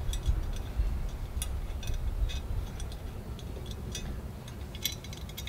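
Light, scattered metallic clicks as a small stainless steel grill handle is handled and turned on a towel, over a steady low rumble.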